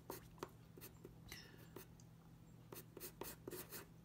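Faint scratching of a wooden pencil on drawing paper in short sketching strokes, with a quick run of shading strokes near the end.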